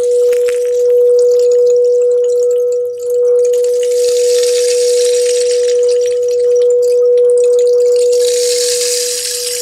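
A frosted quartz crystal singing bowl sounds one steady pure tone, kept going by a mallet at its rim, with a slight dip about three seconds in. Over it a rain stick gives two long spells of trickling, rain-like hiss as its pellets fall, the second near the end.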